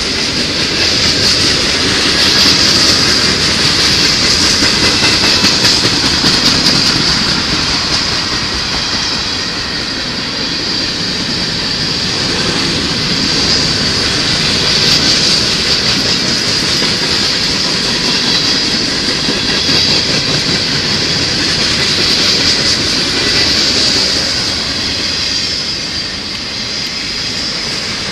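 Freight cars of a long mixed train rolling past at speed: steel wheels rumbling and clattering over the rails, with a high hiss that swells and fades every few seconds.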